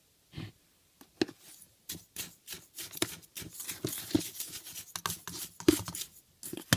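Soda crystals being handled and tipped out: an irregular run of clicks, scrapes and patter that starts about a second in and grows denser after a couple of seconds.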